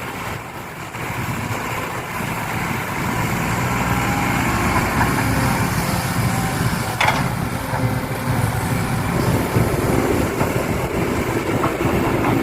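Engine of heavy equipment or a truck running steadily, growing louder over the first few seconds, with one sharp click about seven seconds in.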